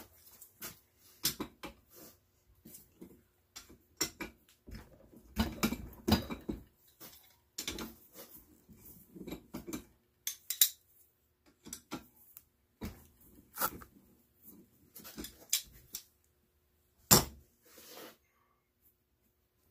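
Metal clicks and clanks of tongue-and-groove pliers gripping and turning parts on a steel electric water valve clamped in a vise, with a longer rough stretch about five to six seconds in and the loudest clank a few seconds before the end.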